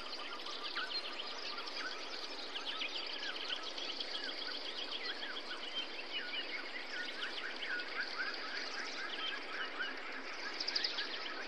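Steady hiss of water with several birds chirping throughout over it, and a brighter burst of bird calls near the end.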